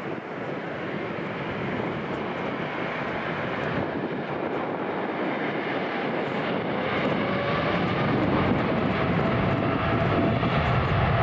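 Boeing 787's jet engines running at taxi power as the airliner rolls past, growing steadily louder. A faint whine comes in about halfway through, and a low rumble builds near the end.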